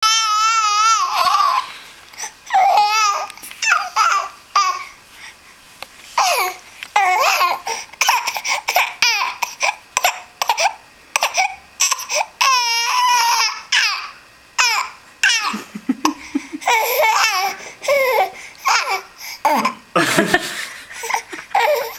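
A baby fussing and complaining in high-pitched, warbling cries while being burped, with an adult laughing along.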